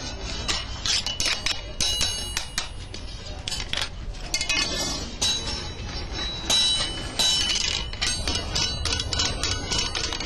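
Iron tools of a glass-bead maker clinking against each other and against metal, many quick irregular clinks with short ringing tones, over a steady low rumble.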